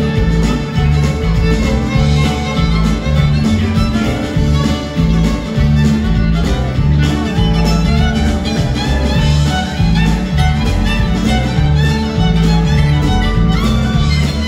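Live band music led by a fiddle solo, with a stepping bass line, drums and banjo behind it.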